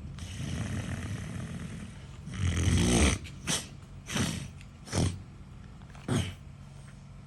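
A person snoring: a long rasping breath, then a loud snort about two and a half seconds in, followed by four shorter snorts spaced under a second apart.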